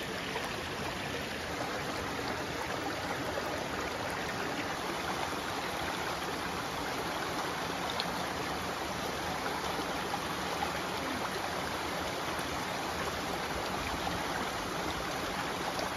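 Small mountain creek running steadily over rocks and little cascades into a pool.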